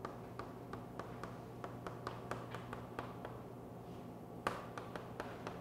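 Chalk tapping and scratching on a blackboard while figures are written: a string of short clicks, with a sharper knock about four and a half seconds in.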